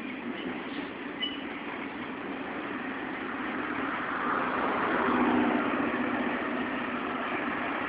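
Triple Crown RoadRailer trailers rolling past on their rail bogies: a steady rumble of wheels on rail, swelling louder around the middle and easing a little near the end.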